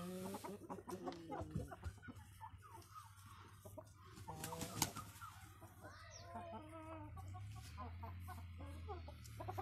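A flock of Light Brahma chickens clucking, with short broken calls from several birds.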